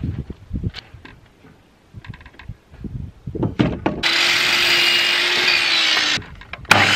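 Knocks of a wooden board being set against the fence of a Biltema sliding mitre saw, then about four seconds in the saw's motor runs loud and steady with a constant whine as the blade is lowered through the board. It stops abruptly about two seconds later and starts again near the end.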